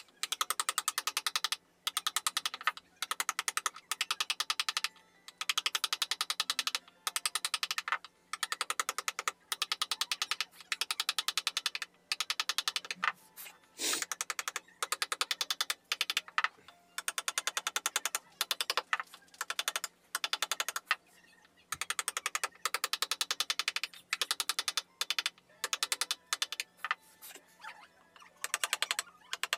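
A small metal-headed hammer rapidly tapping the wooden handle of a carving chisel, driving it into wood to cut fine line patterns. The taps come in quick runs of a second or so, with brief pauses between them.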